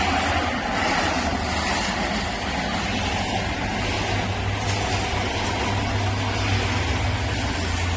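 Steady road traffic: a low engine rumble under an even hiss.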